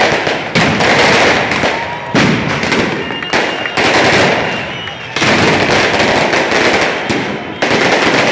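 Firecrackers going off in a series of loud bangs, five of them about one to two seconds apart, each trailing off in a long echoing rumble.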